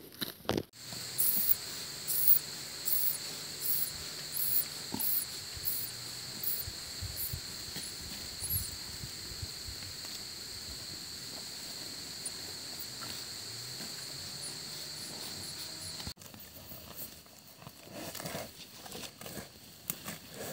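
Steady high-pitched insect drone with a quicker repeating chirp over it for the first several seconds; it cuts off suddenly about sixteen seconds in. Water buffalo tearing and chewing grass make crackling and crunching around it, most plainly near the end.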